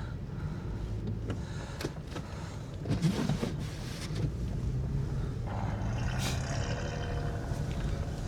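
Steady low rumble of a vehicle engine running, with scattered clicks and rustles and a louder rustle about three seconds in.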